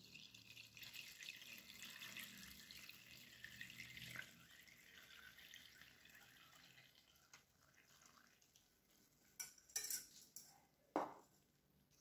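Milk pouring in a soft, steady trickle from a steel pot through a fine mesh sieve into a stainless steel bowl of flour, thinning out after about four seconds. Then a few short knocks, the loudest about a second before the end.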